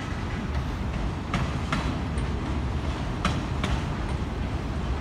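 Freight train's autorack cars rolling slowly past: a steady low rumble with paired wheel clicks over a rail joint, twice, about two seconds apart.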